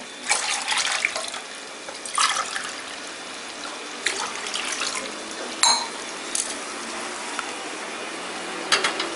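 Water poured in several splashy pours from a steel tumbler into a cooking pot, with a short ringing metal clink about halfway through and a clatter of metal near the end.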